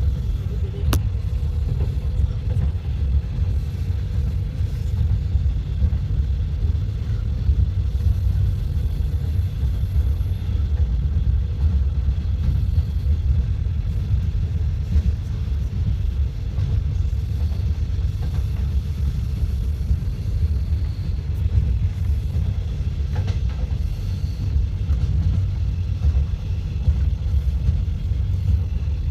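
Passenger train running, with a steady low rumble.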